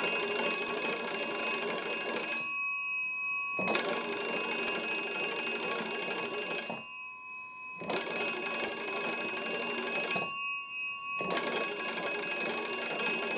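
The original twin bells of an AT&T wooden wall crank telephone ringing as its hand-cranked magneto is turned. It rings in four spells of about three seconds each, with short pauses between them.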